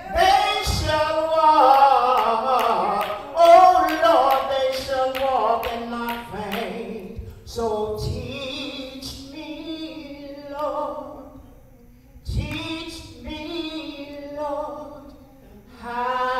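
A woman singing a gospel solo into a handheld microphone: long, wavering held notes in phrases, with short pauses between them.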